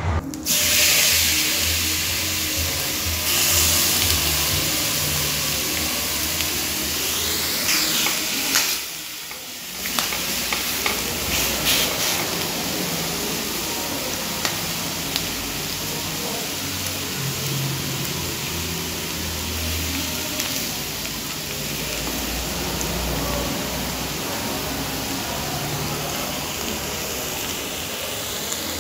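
Food frying in a hot pan: a steady, dense sizzling hiss, with a brief dip about nine seconds in.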